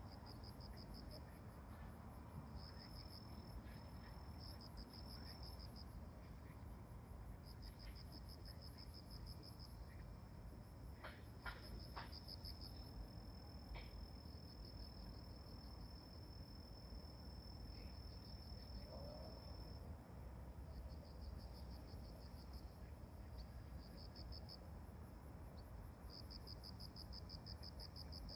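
Insects chirping faintly in short pulsed trills, with one long unbroken trill through the middle, over a low steady rumble.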